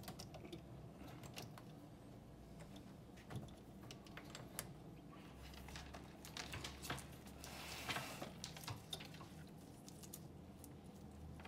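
Scattered light clicks of typing on a computer keyboard, with a brief rustle about eight seconds in.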